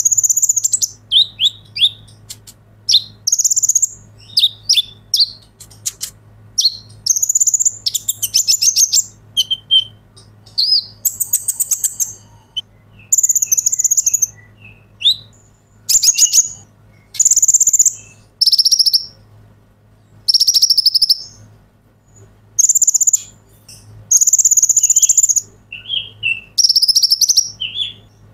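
Male Van Hasselt's sunbird (the 'kolibri ninja') singing persistently: a quick run of short, very high-pitched trilled and chattering phrases, about one every second or two, with brief gaps between them.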